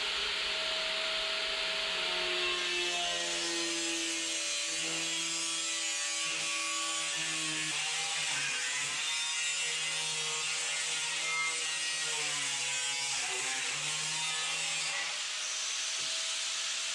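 Electric cutting tool running steadily while cutting, its motor pitch wavering slightly under load; it shuts off near the end.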